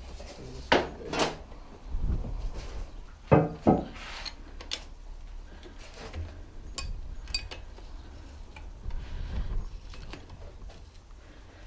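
Metal hand tools and bike parts clinking and knocking as handlebars are fitted and bolted on. The sound is irregular, with a few louder knocks in the first four seconds and lighter clinks after.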